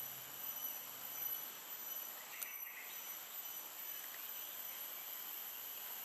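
Outdoor ambience of insects droning, several steady high-pitched whines that hold throughout. A faint low hum fades out within the first second, and a few brief bird chirps come about two and a half seconds in.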